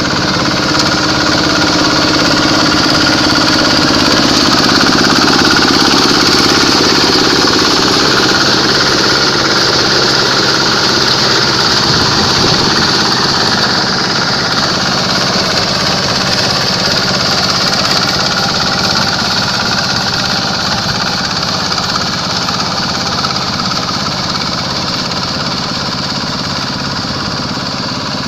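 Quick H-140R combine harvester with its Kubota diesel engine, running steadily at working speed. It gets a little louder about five seconds in, then eases off slowly.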